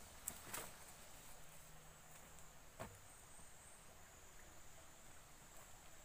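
Near silence outdoors: a faint, steady, high insect drone like crickets, with a few soft clicks early on and one sharper knock just before the halfway point.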